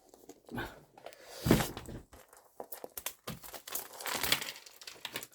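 Paper and card rustling and crinkling as handmade paper journals are handled and sorted through, with a dull thump about one and a half seconds in.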